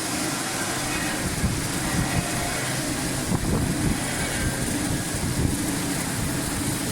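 Jujube washing and drying line machinery running with a steady mechanical hum and noise, and irregular low knocks through the middle.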